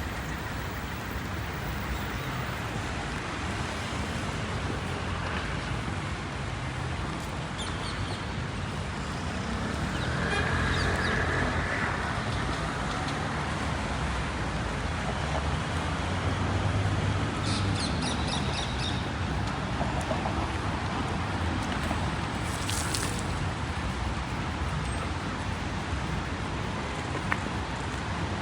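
Steady hiss of rain falling on a city street. A few brief higher sounds cut through it now and then, including a short run of quick clicks.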